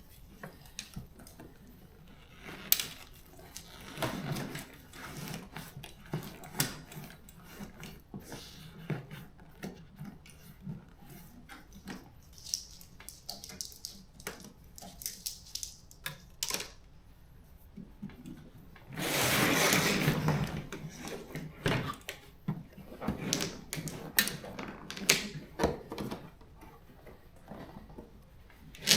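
Scattered clicks, knocks and rustling from hands working at a car seat's wiring and fittings, with a longer, louder scraping rustle about two-thirds of the way in.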